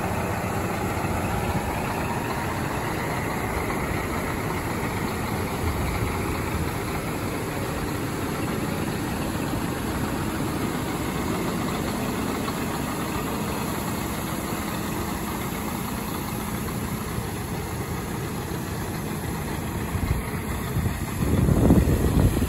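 Scania G420 tractor unit's diesel engine idling steadily. Near the end some louder, irregular low thumps come in over it.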